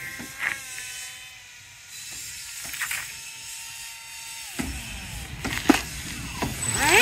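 Battery-electric motor of a foam RC Su-30 model jet whining as it comes in to land. The pitch drops slightly at the start, then the motor cuts off suddenly about four and a half seconds in, followed by a few clicks, one of them sharp.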